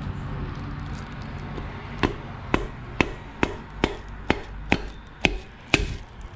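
Wooden mallet handle tapping the crown of a piston nine times, about two taps a second, driving it through a ring compressor into a Honda D16A cylinder bore. The taps are sharp and short, and the piston rings slide into the bore as the piston goes down.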